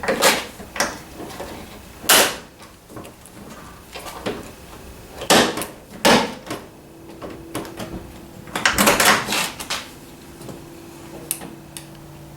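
Scattered metal clicks and knocks from a door lock cylinder being pushed into a car door and handled, loudest about two seconds in, with a quick run of rattling clicks about nine seconds in.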